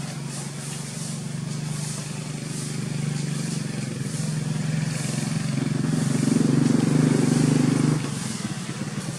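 A motor vehicle engine running steadily, growing louder and then dropping off suddenly about eight seconds in.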